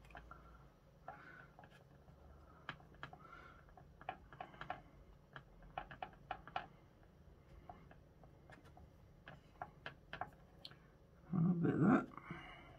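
Small clicks and taps of a paintbrush mixing oil paint against a plastic palette tray, irregular and light. A brief louder sound about a second before the end.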